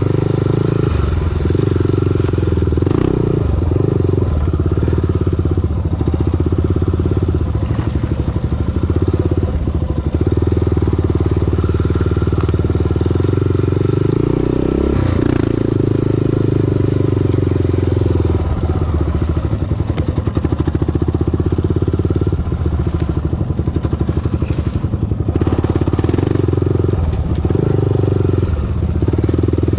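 A 2008 Honda TRX400EX ATV's air-cooled single-cylinder four-stroke engine pulls at low trail speed, the throttle opening and easing off every few seconds. Short clatters and knocks come through now and then.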